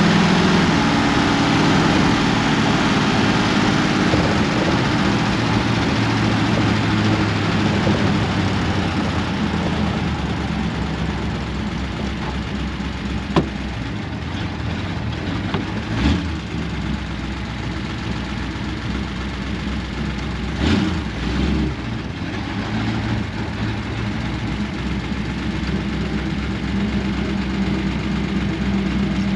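Ford 59AB flathead V8 running through straight pipes, heard from inside the cab while driving, easing off to lower revs with a few short clunks in the middle. The owner says it is still breaking up a little here and there and is probably out of time.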